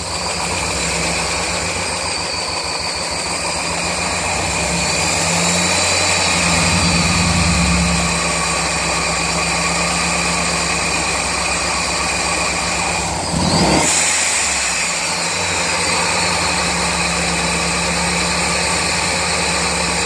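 1999 Mazda Miata's 1.8-litre four-cylinder engine idling on three cylinders with the #4 injector disabled. A light ticking is present that a valve lash adjustment and oil change have not cured, and it seems loudest above the #4 spark plug. There is a brief louder moment about 13 seconds in.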